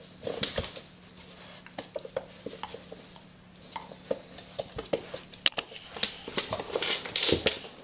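A groundhog and a dog play-wrestling: claws clicking and scrabbling on a wooden floor and bodies scuffing against a fabric dog bed, in irregular clicks and scuffles that are loudest near the end.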